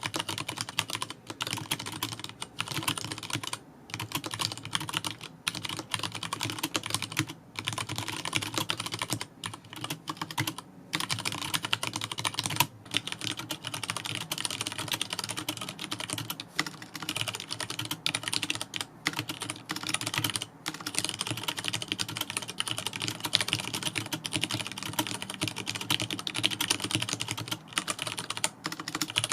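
Leopold FC660M mechanical keyboard with tactile Cherry MX Brown switches being typed on continuously: a fast, dense run of key clacks with short pauses between bursts.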